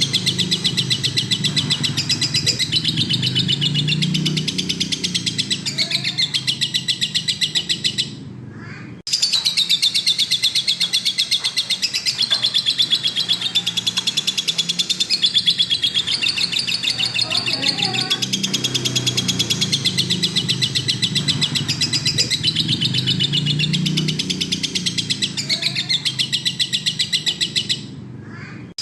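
Lovebird singing a long, rapid chattering trill of evenly repeated high chirps, typical of a lovebird in full song. The trill breaks off for about a second around eight seconds in and again near the end, then resumes.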